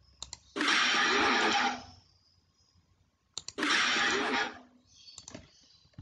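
The "Ahhh mantap" meme sound effect, a man's voice exclaiming "ahhh, mantap", played twice about three seconds apart, each play loud and lasting about a second. Each play comes just after a couple of mouse clicks.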